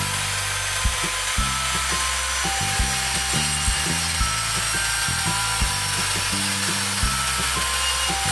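Background music with a steady beat over a circular saw running steadily as it cuts along a plywood sheet.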